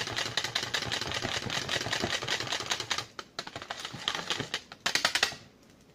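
A small whisk rattling quickly against the sides of a plastic measuring cup as a little soap batter is whisked, a fast run of clicks that slows about three seconds in and stops shortly before the end.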